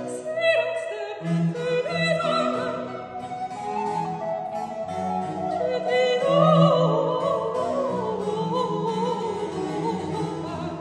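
A woman singing a French Baroque cantata aria with vibrato, accompanied by flute, harpsichord and cello. Her line rises to its highest about six seconds in, then steps down.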